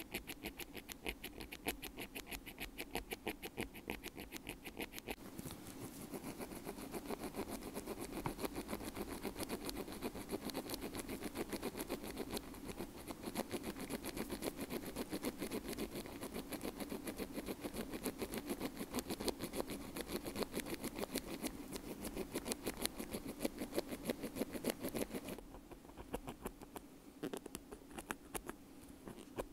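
Bamboo ear pick scratching and scraping in quick, fine strokes against the grille of a white wired earbud, heard very close as a dense crackly scratching. It is fuller through the middle and eases off for a few seconds near the end.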